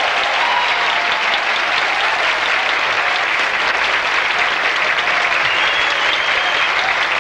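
Theatre audience applauding steadily and loudly, with a few cheers rising over the clapping.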